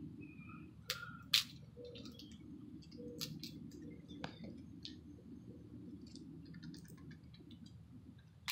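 Scattered sharp clicks and ticks, a few with a short chirp-like tone, over a low steady outdoor rumble.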